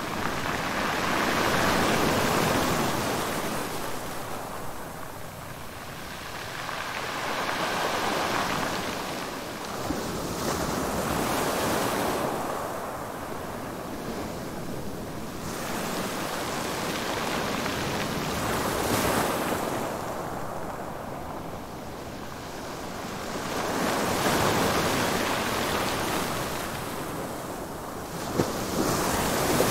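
Surf: waves washing in and drawing back, a broad rushing noise that swells and ebbs about every five or six seconds.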